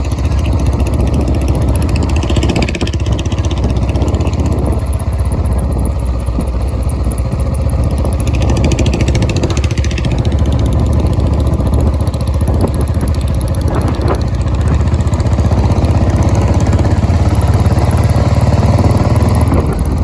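Royal Enfield Bullet Electra 350's single-cylinder engine running steadily through a big aftermarket Punjabi silencer, a loud deep exhaust note, a little louder near the end.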